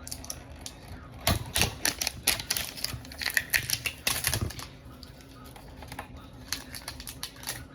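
Hands opening toy packaging: a quick run of irregular clicks and crackles of plastic and cardboard for a few seconds, then a few scattered clicks near the end.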